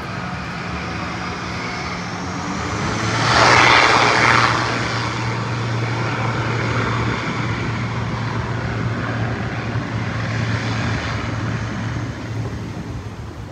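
Airliner engines running, with a loud rushing swell about three to four seconds in, then a steady low drone.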